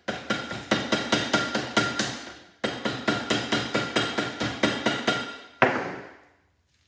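Hammer rapidly striking the steel E-shaped laminations of a small transformer held in a bench vise, about five blows a second in two runs with a short break, with a faint metallic ring. This knocks loose the laminations so the copper windings can be removed. A final, louder blow near the end rings away.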